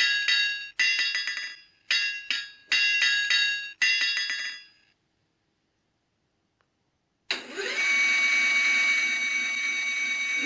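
Forge sound effect from a model blacksmith's shop's sound circuit, played through a small loudspeaker: rhythmic groups of ringing metallic strikes like a hammer on an anvil for about five seconds, then a pause. About seven seconds in, a steady whirring noise starts, rising briefly in pitch as it begins.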